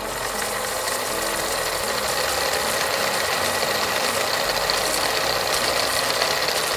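A steady, dense rattling clatter, like a machine running, at an even level throughout.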